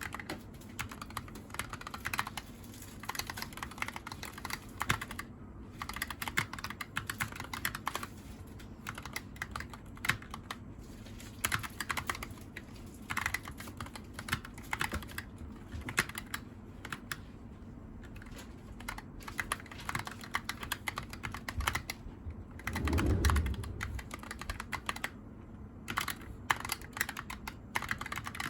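Typing on a Razer Huntsman Tournament Edition (Japanese layout) keyboard with linear optical switches. Fast runs of key clicks are broken by short pauses. One louder low thud comes about two-thirds of the way in.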